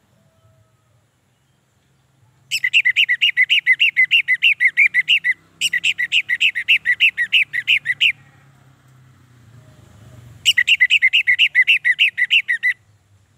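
Orange-headed thrush singing in three runs of rapidly repeated whistled notes, about six notes a second, each run two to three seconds long, the first starting about two and a half seconds in and the last ending near the end.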